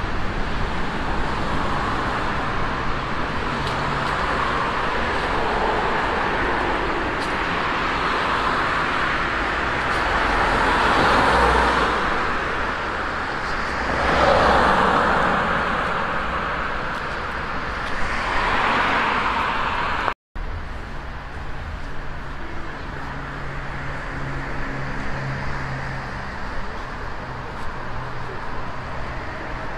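Road traffic: a steady hum of cars on a multi-lane road, with three cars swelling loudly past in the middle. After a brief dropout about two-thirds through, the traffic continues more quietly.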